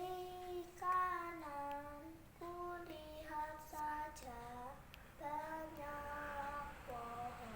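A child singing a simple children's song alone, holding each note and stepping the tune up and down, with short pauses between phrases.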